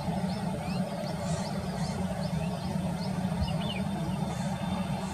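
Airbus A320-214's CFM56 jet engines running steadily at low taxi thrust as it rolls along the runway: an even hum and hiss with no rise in pitch. A small bird chirps over it in quick repeats, about three a second.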